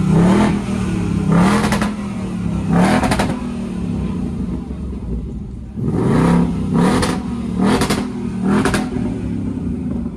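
2024 Ford Mustang Dark Horse's 5.0-litre V8 being revved while parked: three short throttle blips, a few seconds of idle, then four more blips in quick succession.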